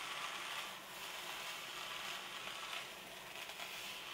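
Shredded vegetables sizzling faintly in oil in a nonstick wok over a low-to-medium gas flame while a spatula stirs them. The hiss eases slightly about a second in.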